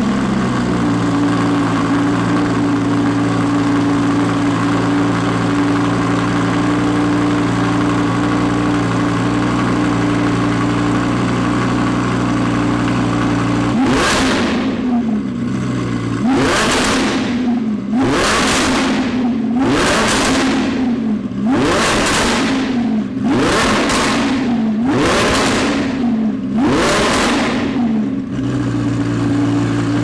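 Audi R8 V10 Plus's naturally aspirated 5.2-litre V10, through a Fi valvetronic exhaust, idling steadily just after start-up. About halfway through come about nine quick, sharp throttle blips, each rising and falling back. It then settles back to idle near the end.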